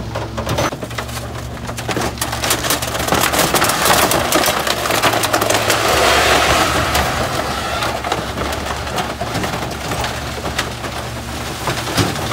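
Garbage truck packer crushing bulky furniture: a dense crackle of wood snapping and splintering over the truck's steady engine hum, the crunching growing louder through the middle.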